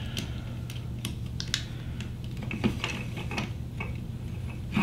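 Light, irregular clicks and ticks of a 1.5 mm hex key turning a small bolt in a plastic 3D-printer extruder housing and the housing being handled, over a low steady hum.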